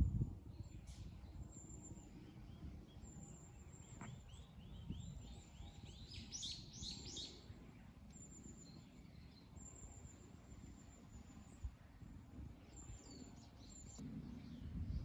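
Wild birds singing: short, thin, high notes repeated throughout, and from about three seconds in, a run of chirps that quickens and climbs in pitch. A low rumble of wind sits underneath.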